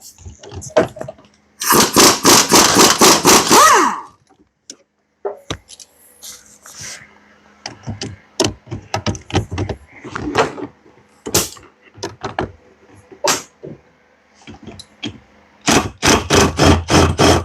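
Hand tools clinking and knocking against engine parts during an engine teardown. There are two runs of quick, evenly spaced strikes, about four or five a second, one near the start and one near the end, with scattered single clicks and knocks between them.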